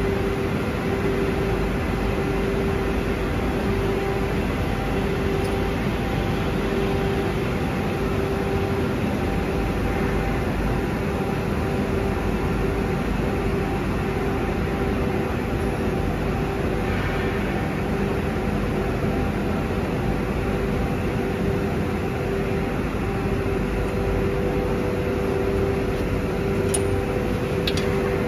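Steady machinery hum of a factory workshop, with a droning tone that swells and fades every second or so. A few faint clicks near the end.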